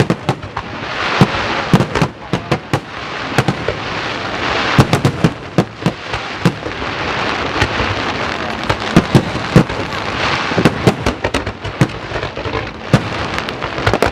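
Aerial fireworks display: shells bursting in rapid, irregular bangs, several a second at times, over a continuous hiss.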